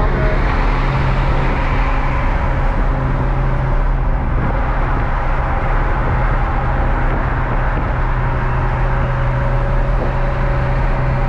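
Sports car cruising at a steady speed: the engine runs with an even, unchanging low note under steady road noise, no revving.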